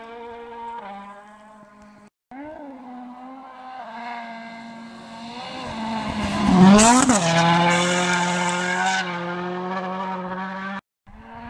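Toyota Yaris WRC rally car's 1.6-litre turbocharged four-cylinder engine approaching at speed, revving up through rising pitches. It is loudest as the car passes about seven seconds in, then drops to a steadier, lower drone as it pulls away. The sound cuts out briefly twice.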